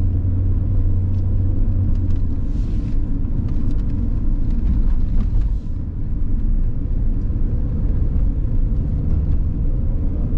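Steady low engine and road rumble heard from inside the cabin of a moving Ford car.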